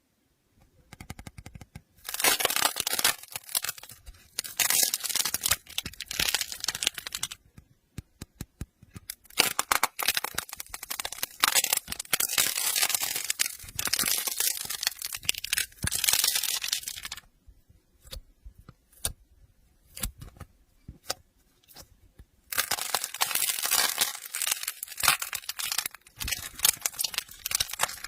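Slime being squeezed and poked by hand, making dense crackling and popping in runs of a few seconds, with scattered single pops in the pauses between.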